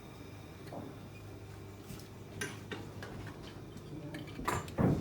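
Light metallic clinks and clicks of tools and metal parts being handled at a plumbing workbench, with a louder knock near the end.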